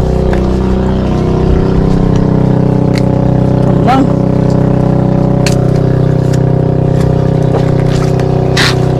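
A boat's engine running steadily, with scattered sharp knocks over it.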